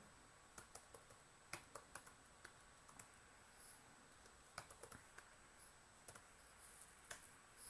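Faint, irregular keystrokes on a computer keyboard.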